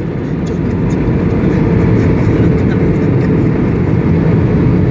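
Aircraft rumbling as it rolls along the runway, growing louder over the first two seconds and then holding steady, with a thin steady whine and faint rattling clicks.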